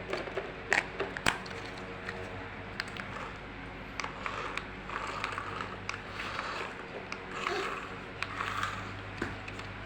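Battery-powered toy race car switched on and running, its wheels rolling, with a couple of sharp plastic clicks in the first second and a half.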